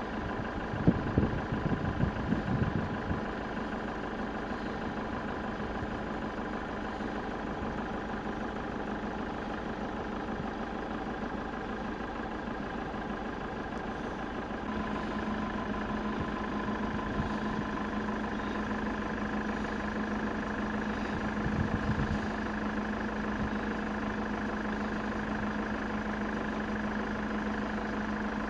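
Steady machine drone with several held tones and a few low bumps in the first few seconds; about halfway through a deep hum grows stronger.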